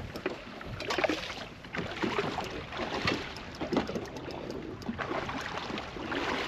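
Water slapping against the hull of a bass boat in choppy open water, in irregular surges, with wind on the microphone.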